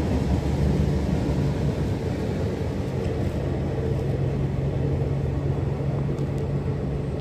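Diesel passenger train running along the platform: a steady rumble of wheels on rail with a low engine hum, easing slightly near the end.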